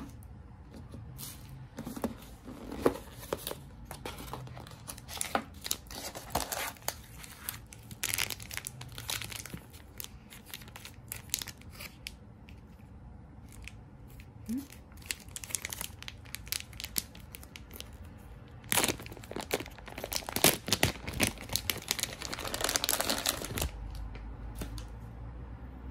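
Thin plastic packaging on an instant udon bowl crinkling and tearing as it is opened by hand, with small knocks of the plastic bowl and lid. It comes in irregular bursts of rustling, busiest near the end.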